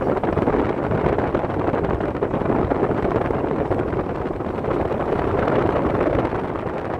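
Wind rushing in at an open car window while driving, buffeting the microphone, over steady road noise: a loud, even rushing sound.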